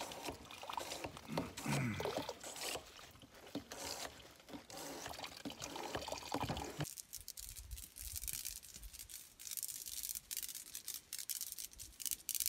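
Handheld pump water filter being worked, with water trickling and splashing into a collapsible MSR water bag. About seven seconds in this gives way to a gusty hiss of wind on the microphone.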